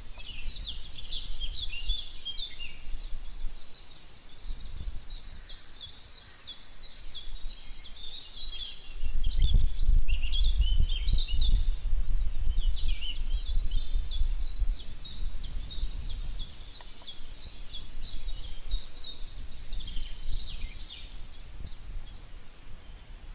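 Birds chirping and trilling in a busy, continuous chorus, over a low rumble that swells from about nine seconds in and eases off a few seconds later.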